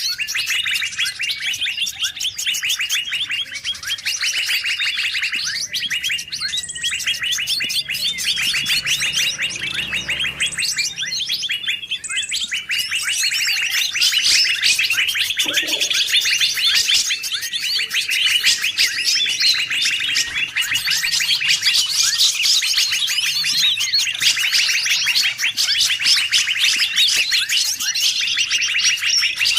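A dense mix of many songbirds chirping and trilling at once, a continuous rapid chatter with no pause. It is a mixed forest-bird lure recording (suara pikat), played to draw wild songbirds in.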